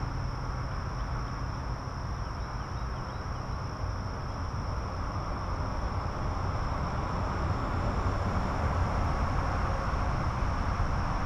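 Steady high insect buzzing, with wind rumbling on the microphone.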